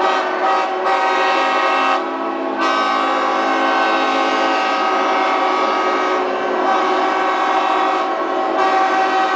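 Many yacht and boat horns sounding at once in a sustained mass salute, blending into a loud dense chord of many steady pitches that thins briefly about two seconds in.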